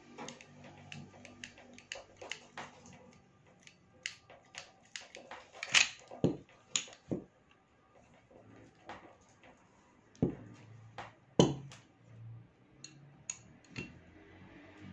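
Sharp metallic clicks and clacks of a Kimar toy pistol's slide and parts being worked and handled. The clicks come irregularly, with the loudest about six seconds in and again about eleven and a half seconds in.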